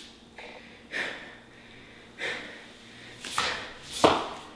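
Heavy breathing from exertion: about five short, sharp breaths spaced roughly a second apart, at the strain of the final rep of a hamstring exercise.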